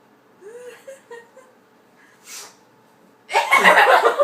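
Young women laughing: a few faint vocal sounds and a short breath, then a burst of loud, pulsing laughter in the last second.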